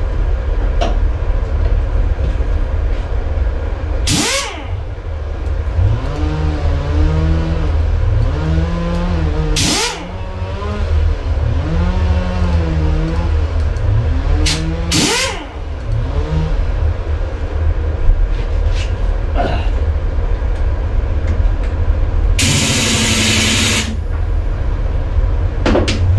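Big old air compressor running with a steady, wavering hum. Short bursts of air from an air tool on the hose cut in about four, ten and fifteen seconds in, with a longer burst of about a second and a half near the end.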